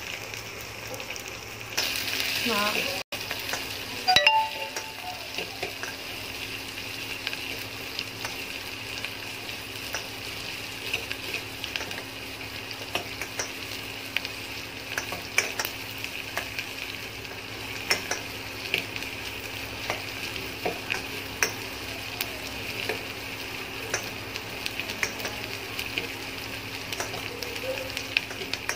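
Sliced onions sizzling steadily in hot oil in a steel pot as they are sautéed, with a steel spoon scraping and clicking against the pot while they are stirred. A sharp knock about four seconds in.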